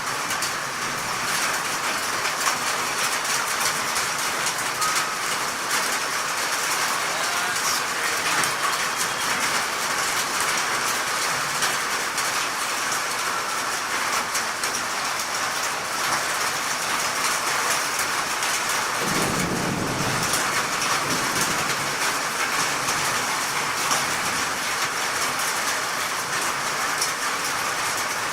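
Heavy rain falling steadily, a dense hiss, with a short low rumble about two-thirds of the way through.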